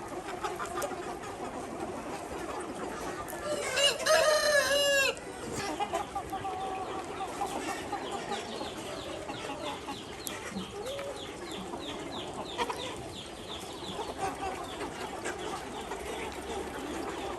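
Flock of Ho chickens: a rooster crows once, loudly, about four seconds in, over steady clucking from the flock, with a run of quick high chirps in the middle.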